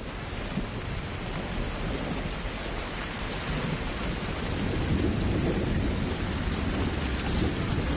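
Steady rain falling on shallow marsh water, with thunder rumbling low beneath it; the rumble grows louder in the second half.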